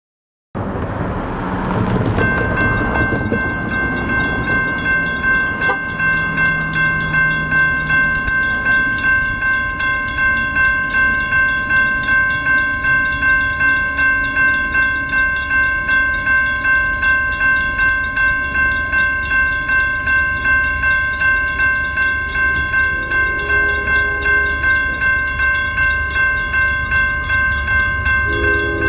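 Railroad grade crossing bell ringing steadily, about two strikes a second, over a low rumble. A train's multi-chime horn sounds faintly about three-quarters of the way in and again, louder, near the end as the train approaches.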